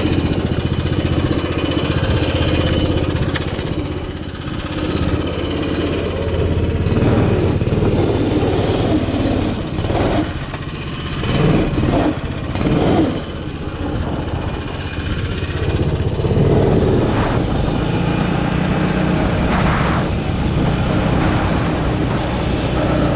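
Arctic Cat 120 youth snowmobile's small engine running steadily under way, with a few short surges of revving about halfway through as the sled pushes through deep snow.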